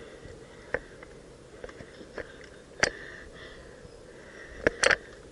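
A few scattered sharp clicks and knocks over a faint steady background, the loudest two in quick succession near the end.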